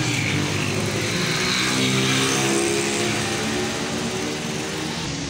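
An engine running nearby, a pitched hum that drifts slightly and is loudest about two seconds in.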